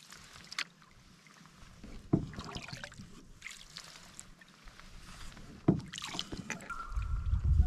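Canoe paddle strokes in lake water: soft swishes every second or two, with two sharp knocks, one about two seconds in and one near six seconds. Near the end a low rumble and a steady high tone begin and grow louder.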